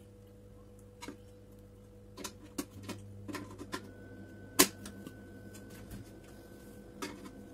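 Adjustable wrench working on the fitting of a gas stove burner's feed pipe, knocking against the steel stovetop: scattered short clicks and knocks, the loudest about four and a half seconds in.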